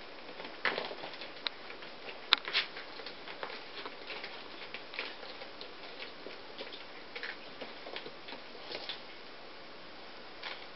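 A ragdoll kitten's claws catching and scratching on a playpen's fabric mesh and a sisal-wrapped scratching post: irregular light scratches and ticks, with a sharper click about two seconds in.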